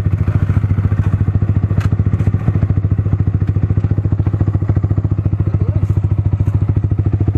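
A Yamaha R15's single-cylinder engine idling steadily with an even, rapid low pulse, holding the same pitch throughout.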